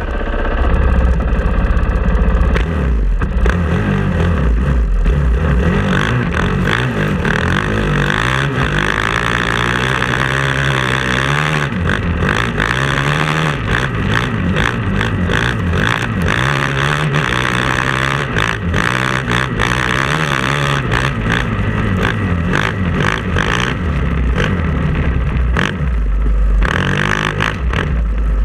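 Dirt bike engine running under load on a trail, its pitch rising and falling with the throttle and gear changes.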